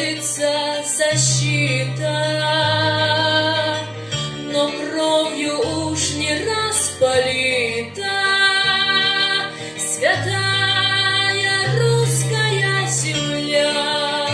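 Song introduction music: a held, wavering melody line over a bass that steps to a new note every second or so, with a few short bright high accents.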